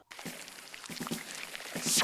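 Quiet cartoon sound effects: soft short blips over a faint hiss, then a brief bright whoosh near the end.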